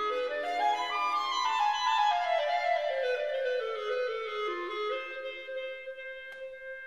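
Background instrumental music in a classical style, led by a woodwind melody. The melody climbs quickly over the first second, steps slowly back down, then settles on a held note, with a short click near the end.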